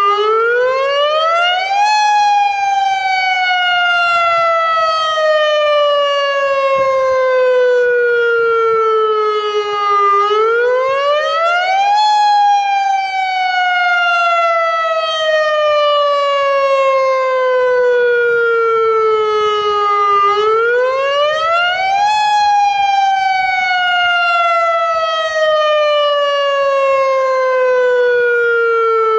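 Federal Signal Modulator AHAB tsunami warning siren sounding its emergency wail tone, the signal used in real emergencies. The pitch rises quickly over about two seconds, then falls slowly for about eight, repeating about every ten seconds.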